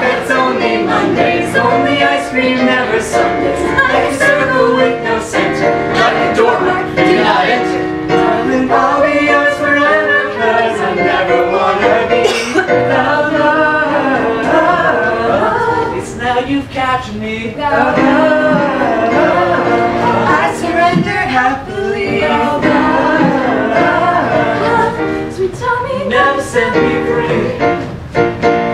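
Men's and women's voices singing a musical theatre song together over music.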